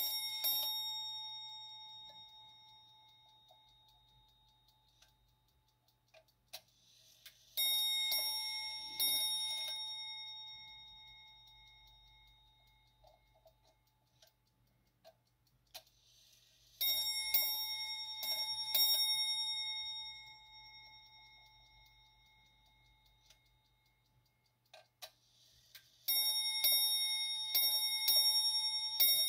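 Hermle brass ship's bell clock striking ship's bells as its hands are advanced. It gives four series of bright bell strikes, the strikes coming in quick pairs, each series longer than the last and ringing on, fading over several seconds. A short whirr comes before each series, and faint clicks fall between them.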